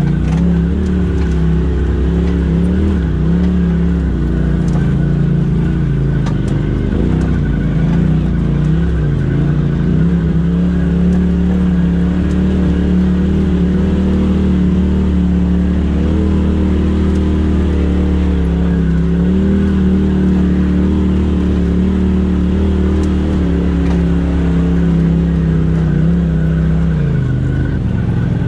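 Polaris RZR Turbo S side-by-side's engine running at low, crawling speed over rocky ground, the revs rising and easing in small swells as the throttle is worked, with a brief drop in revs near the end.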